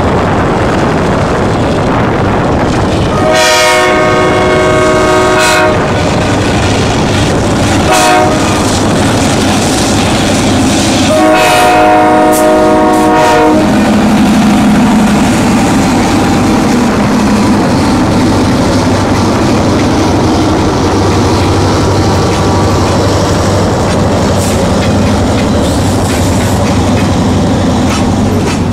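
Diesel freight locomotive sounding its air horn in two long blasts with a short toot between, then rumbling past as a string of boxcars rolls by with wheels clacking on the rails.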